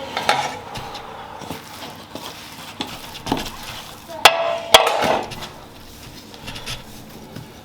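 Kitchen utensils knocking and clinking against cookware, with two sharp, ringing knocks about four seconds in that are the loudest sounds.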